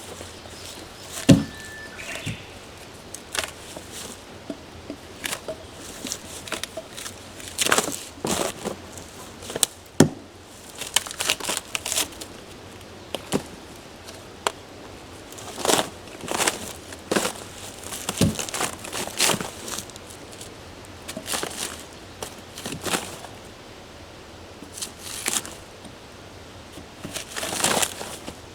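Dry branches and brush rustling and crackling as they are handled, in irregular bursts, with a few sharp knocks.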